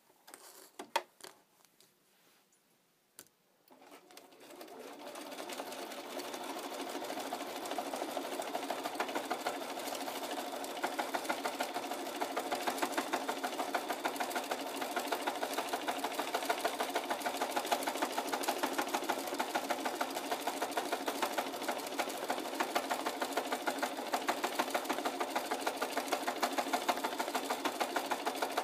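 Bernina sewing machine doing free-motion stitching: after a few quiet seconds with light clicks, the machine starts about four seconds in, speeds up over a couple of seconds and then runs at a steady, fast stitch as the fabric is guided by hand.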